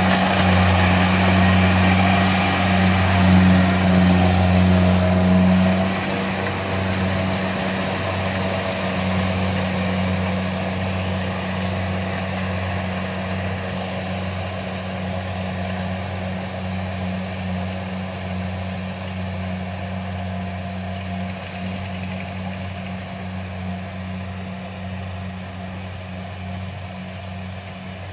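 Kubota DC-70 combine harvester's diesel engine running with a steady drone. It is loudest for about the first six seconds, then drops and fades gradually as the machine draws away.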